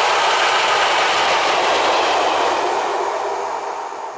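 6Dh-1 diesel locomotive passing close by with a single open coal wagon. Its engine and wheels on the rails give a steady noise that fades out near the end.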